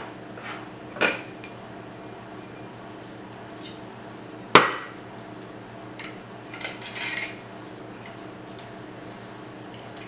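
Aluminium frame extrusions and their steel screws and tools knocking and clinking together while the frame is being put together. There is a knock about a second in, one sharp louder knock about halfway, and a short run of lighter clinks soon after.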